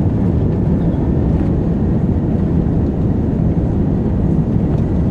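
Airbus A380 engines and airflow heard from inside the passenger cabin during takeoff: a loud, steady, low rumble.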